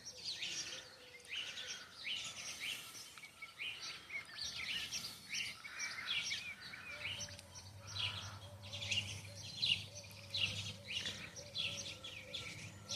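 Small birds chirping, many short high calls repeated throughout, with a faint steady low hum coming in about halfway through.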